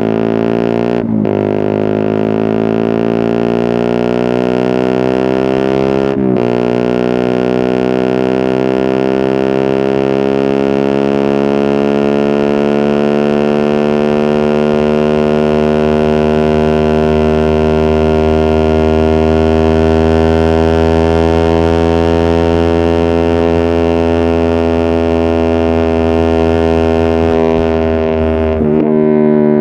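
Suzuki GSX-R150 single-cylinder engine running through an aftermarket exhaust while the bike accelerates through the gears. Its pitch drops sharply at upshifts about a second in and around six seconds in, then climbs slowly and holds in a long pull, with two more shifts near the end.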